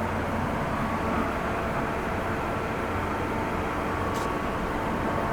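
Steady engine rumble with a faint constant hum.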